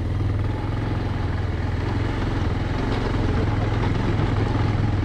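Bajaj Pulsar 220F's single-cylinder engine running steadily at low speed as the motorcycle climbs a rough stone track.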